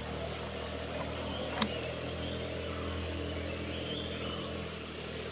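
A vehicle engine idling with a steady low hum, with a single sharp click about a second and a half in.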